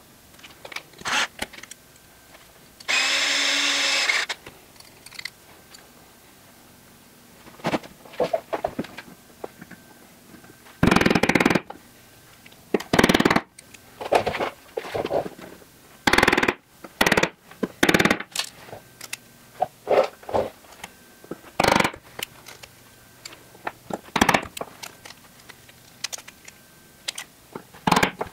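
Small metal door-handle parts being handled and fitted together on a carpeted workbench, giving a string of irregular clicks, taps and knocks that come thickest in the second half. About three seconds in, a brief steady buzz lasting about a second.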